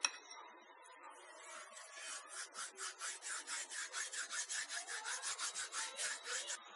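Dried fenugreek leaves (kasuri methi) being rubbed and crushed by hand over the dish, heard as quick, even scratchy rubbing strokes, about five or six a second, from about two seconds in until near the end. A short knock comes at the very start.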